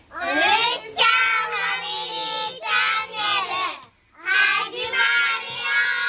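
Children's voices singing a short intro jingle in two phrases, with a brief silent break about four seconds in.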